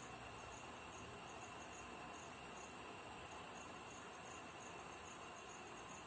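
Faint steady background hiss with a high-pitched chirp pulsing evenly about twice a second.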